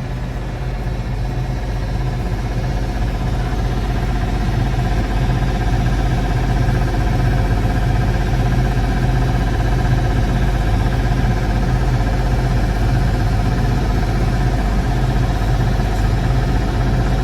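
Farm tractor engine running steadily at idle, getting slightly louder over the first few seconds and then holding even.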